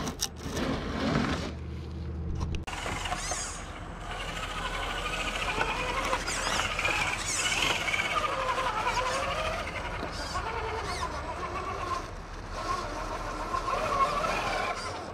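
Electric motor and gear whine of a Traxxas TRX-4 Defender RC rock crawler, rising and falling in pitch with the throttle as it climbs over rocks.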